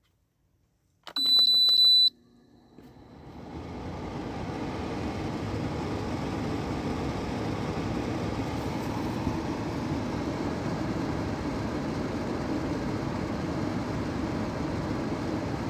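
Keystone 5,000 BTU window air conditioner switched on: a single high electronic beep lasting about a second from its digital controls, then the Welling fan motor spins up and blows with a steady whooshing hum. Only the fan is running; the compressor has not started.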